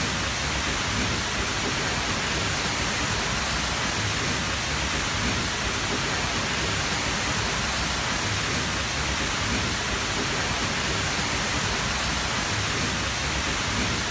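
Tall natural waterfall: a steady, dense rush of falling water crashing down, an even hiss-and-rumble with no breaks.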